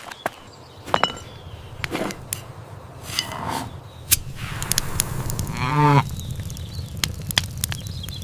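A cow's moo, one call about six seconds in, among scattered clicks and knocks over a low rumble.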